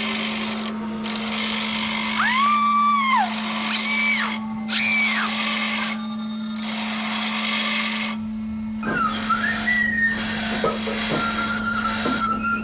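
Experimental tape sound collage: a steady low hum under blocks of hiss that cut in and out abruptly, with several rising-and-falling whistle-like glides in the first half. About two-thirds of the way in, the texture changes to a high steady tone with scattered clicks.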